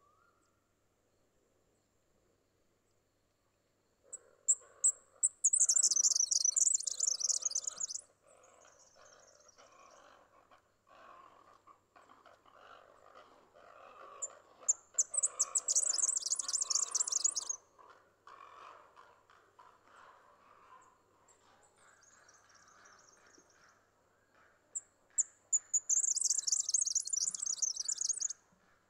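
Red-backed fairywren singing: three high-pitched, rapid reels, each opening with a few short sharp notes and lasting two to three seconds, about ten seconds apart, over a faint background.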